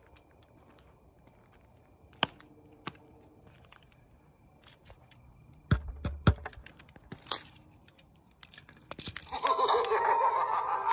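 A few scattered knocks and rustles, then about nine seconds in a Halloween yard prop starts playing a loud, pitched sound effect through its small speaker.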